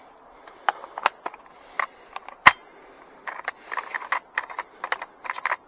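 Clicks and light clatter of a chainsaw's chain and bar being handled and fitted, with one sharper knock about two and a half seconds in and a quick run of small clicks near the end.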